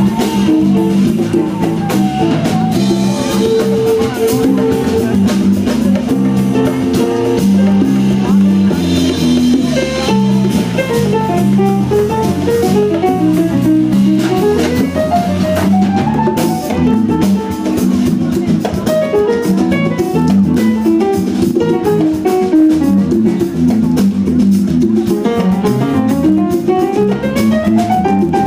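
Live jazz-Brazilian band music: an electric bass solo of fast plucked note runs, sweeping up and down several times, over drum-kit accompaniment in a baião groove.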